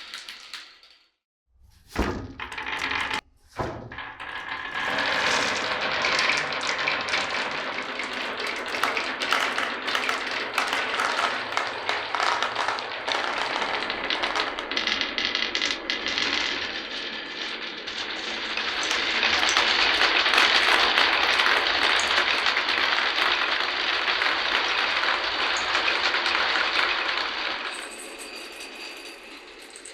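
Glass marbles running through a wooden marble run: two sharp knocks a few seconds in, then a long stretch of dense clattering and rolling as many marbles pour along the tracks, loudest about two-thirds of the way through and dying down near the end.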